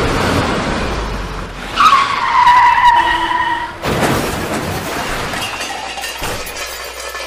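Car tyres screeching in a hard skid for about two seconds, then a sudden crash as the car strikes something, with a noisy tail that fades away.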